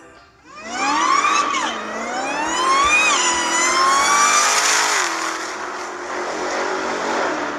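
High-performance car engine accelerating hard, its pitch climbing and dropping sharply at two quick gear changes, then easing back and running steadier.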